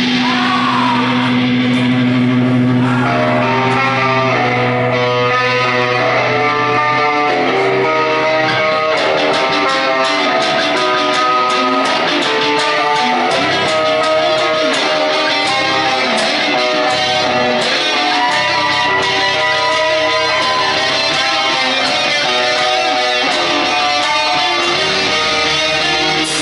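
Amplified guitar played live through an amp: a low chord rings and is held for the first few seconds, then gives way to a long run of picked single notes that step up and down.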